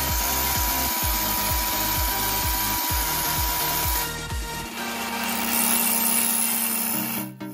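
A cordless drill running, spinning a chrome screwdriver shaft against sandpaper held by hand, under electronic dance music with a steady beat. A little past halfway the beat drops out and a steady lower hum remains.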